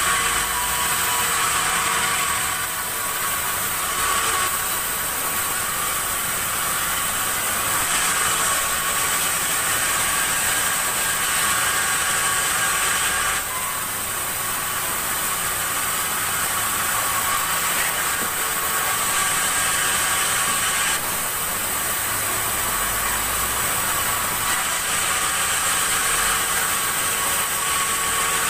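Sawmill saw running steadily, a loud continuous whine with hiss. Its tone and level shift briefly a few times.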